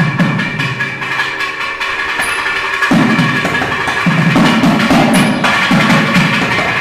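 Nadaswaram ensemble playing raga Ramapriya: the nadaswaram's sustained reedy melody over a drone, with dense thavil drumming. The thavil's heavier low strokes come in about three seconds in.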